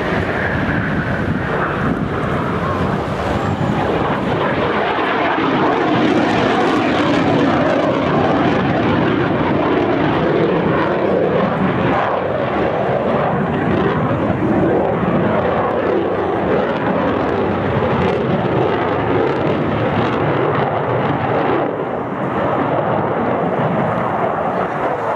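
Eurofighter Typhoon's twin Eurojet EJ200 turbofan engines: loud, steady jet noise as the fighter flies its display overhead. A high whine falls in pitch over the first couple of seconds.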